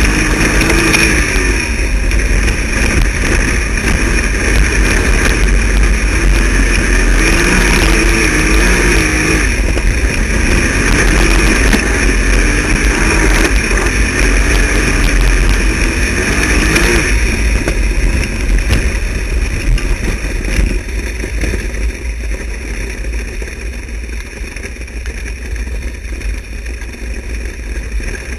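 Wingless dirt-track sprint car's V8 engine heard from on board, its pitch rising and falling as it throttles up and lifts around the oval, over a constant low rumble of wind and track noise. About 17 seconds in the engine note drops back and the sound gets quieter.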